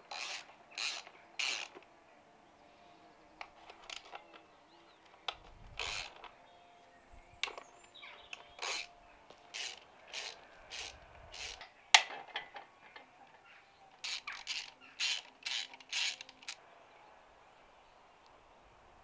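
Hand socket ratchet clicking in short groups of strokes as it turns bolts on a Honda D-series engine, with one sharper crack about midway.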